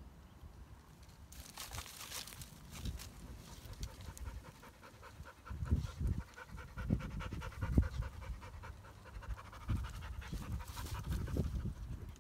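Kars shepherd dog panting hard and fast while biting at a tree trunk, with dry twigs rustling and several heavy low thumps, the loudest in the middle of the clip.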